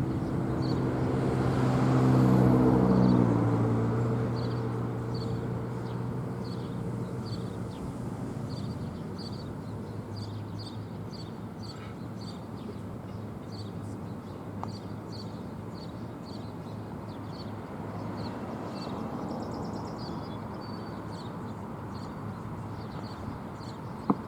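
A road vehicle passes, its engine hum and tyre noise rising to a peak a couple of seconds in and fading over the next several seconds into steady distant traffic. High short chirps repeat about twice a second throughout.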